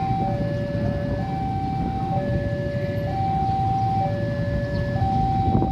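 Railway level-crossing warning siren sounding two alternating notes, high then low, switching about once a second, over a heavy low rumble. There is a sharp knock near the end.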